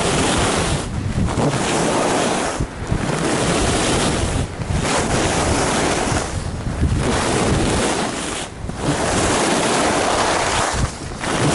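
Skis carving on a groomed piste at speed, with wind rushing over the microphone: a loud hiss that swells with each turn and dips briefly about every two seconds.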